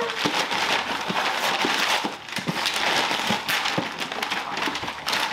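Gift wrapping paper being torn and crumpled by several people at once: a continuous run of rips and crinkles.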